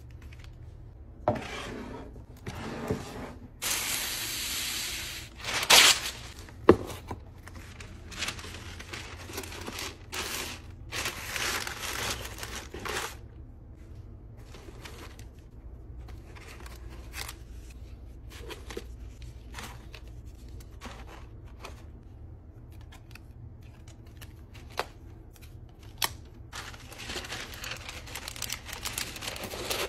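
Close-up handling of paper and plastic packing materials: rustling, crinkling and a tearing, peeling sound in the first half, with a few sharp clicks. Near the end, tissue paper crinkles as it is folded in a cardboard mailer box.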